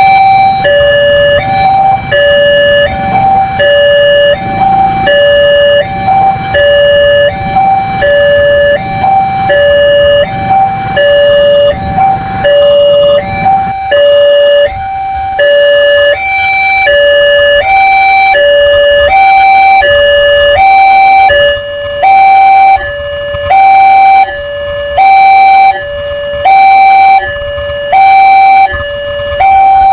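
Electronic two-tone warning alarm of an Indonesian railway level crossing, sounding an alternating high-low pair of tones about once a second as the barrier warns of an approaching train. A low rumble sits underneath for the first half and stops about halfway.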